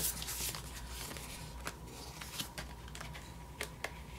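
Light paper handling on a ring planner: soft rustles and a few small clicks and taps as the pages are set in place and pressed flat, over a faint steady hum.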